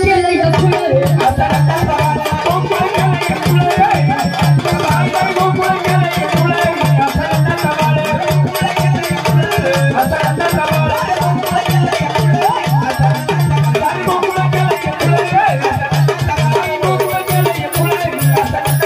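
Instrumental interlude of live Marathi folk (jagran gondhal) music: dense, fast rattling percussion over a regular low drum beat, with a wavering melody line in the middle range.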